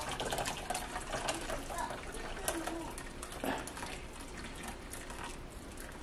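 Just-boiled water being poured into a steel bowl of cornstarch slurry to cook it into pap, a steady pouring splash with scattered light clicks.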